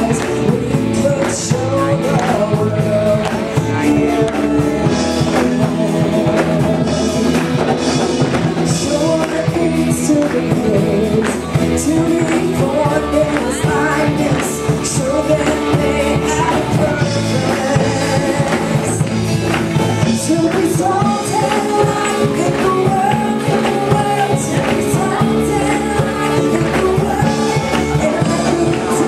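Live amplified praise band playing a rock-style worship song: a woman singing lead over electric guitars, bass and congas.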